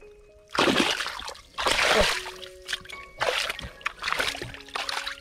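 Hands splashing and scooping in a shallow hole of muddy water, about five irregular splashes roughly a second apart, the loudest near two seconds in.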